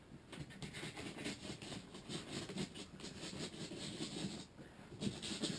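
Hands working at the packing tape and cardboard of a parcel box: a run of rapid crackling and scratching that pauses briefly near the end.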